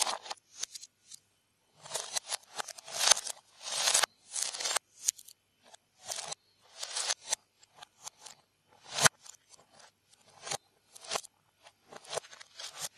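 Loose plastic Lego Technic pieces clattering and scraping on a wooden surface as hands sort through the pile, with sharp clicks of parts being pressed together; the loudest click comes about nine seconds in.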